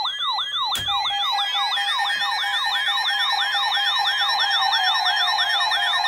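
RadioShack NOAA weather radio sounding its warning alert siren: a loud wailing tone that sweeps down in pitch about three times a second, over and over. The siren signals that a warning-level alert, here a flood warning, has been received. About a second in there is a click, and a steady tone joins under the siren.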